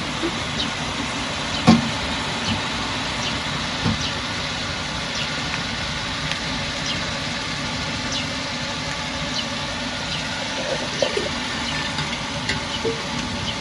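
A steady rushing noise, with faint clinks and scrapes of a metal ladle scooping solid palm oil from a tin and dropping it into a large aluminium pot; one sharper knock comes a couple of seconds in.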